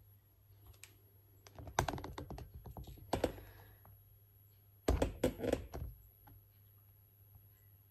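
Two short runs of light, rapid clicks and knocks, the second about three seconds after the first: handling noise from kitchen things being moved on the counter and hob.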